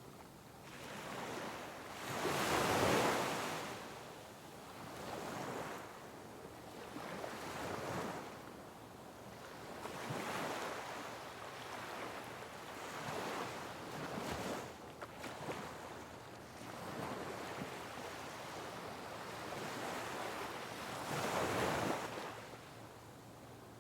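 Sea waves breaking on rocks, each surge swelling and falling away every few seconds, with two louder breakers, one about three seconds in and one near the end.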